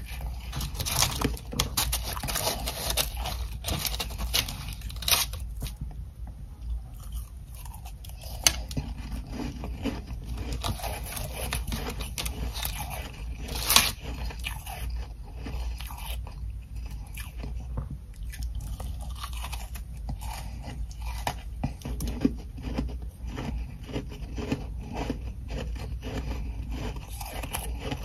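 Close-up chewing and crunching of ice chunks coated in powdery humidifier frost: hard, irregular crunches with a few sharp bites standing out, about 5, 8.5 and 14 seconds in.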